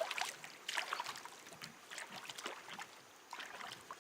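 Light splashing and trickling water with a few small sharp knocks, busiest in the first second or so.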